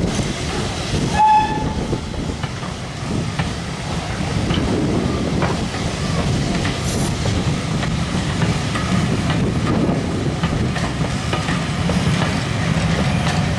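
Pullman coaches and a Mark 1 coach rolling slowly past, their wheels rumbling steadily and clicking over the rail joints. About a second in, a short shrill whistle-like tone sounds once.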